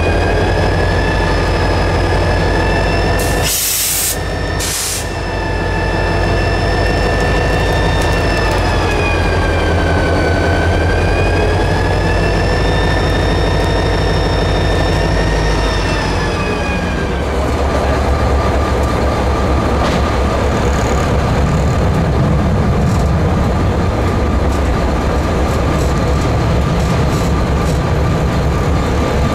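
Diesel locomotive idling, a steady low rumble with a whine that wavers slightly in pitch, broken by two short hisses about four and five seconds in. About halfway through, a different engine's steady rumble takes over, carrying a faint steady tone.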